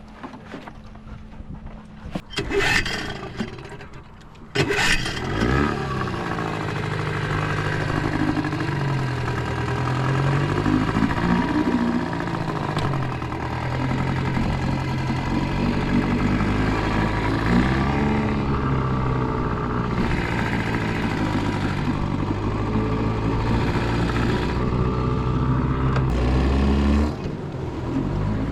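Boat outboard motor being pull-started: a short sputter about two and a half seconds in, then it catches about four and a half seconds in and keeps running, its pitch rising and falling with the throttle.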